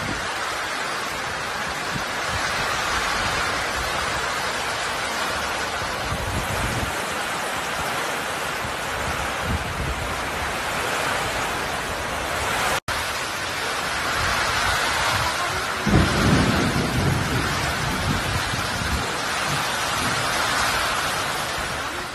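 Heavy rain pouring steadily in a strong gusty wind, with the wind buffeting the phone's microphone in uneven low rumbles. The sound drops out for a moment about halfway through, and the loudest rumble comes a few seconds later.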